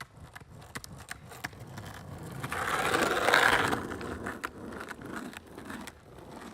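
Scraping and clicking of metal parts on an inline-skate frame. It swells to a loud grinding noise about three seconds in, then dies down.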